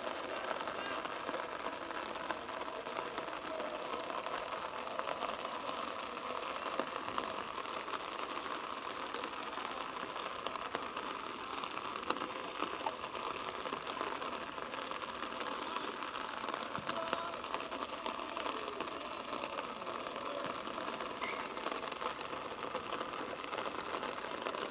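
Steady outdoor background noise of a rugby pitch during play, with a few faint distant shouts and voices.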